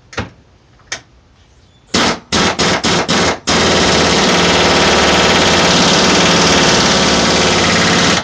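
Pneumatic impact wrench driving the vise's mounting bolts down: a few short bursts, then a long unbroken run of rapid hammering that cuts off suddenly. The bolt is being spun rather than the nut.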